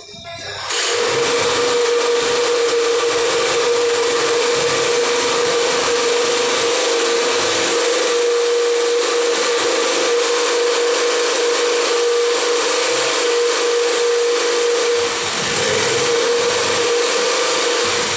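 A machine running with a steady high whine over loud hiss, cutting in suddenly about a second in, with a brief dip near the end.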